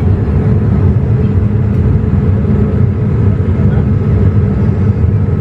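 Steady cabin noise inside a Boeing 787-8 airliner in descent: an even, low roar of airflow and engines, with a faint steady whine above it.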